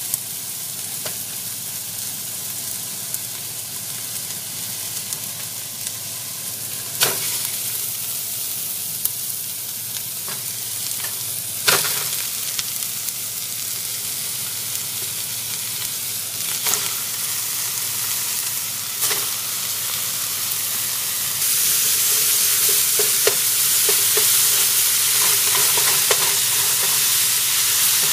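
Ground beef sizzling as it browns in hot oil with onion and garlic in an aluminum stockpot, with a few sharp knocks against the pot. The sizzle grows louder about three quarters of the way through, as the meat is broken up and stirred with a wooden spoon.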